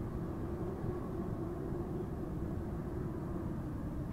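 Car engine running, a low steady rumble heard from inside the car, with a faint held hum that fades near the end.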